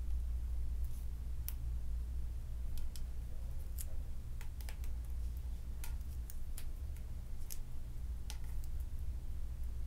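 Irregular small ticks and crinkles, a dozen or so, as adhesive finishing tape is peeled and pressed around the end of a tennis overgrip on the racquet handle, over a steady low hum.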